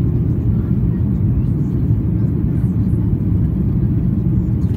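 Steady cabin drone of a Boeing 737-800 in flight, heard from a window seat over the wing: a constant low rumble of its CFM56 engines and the airflow.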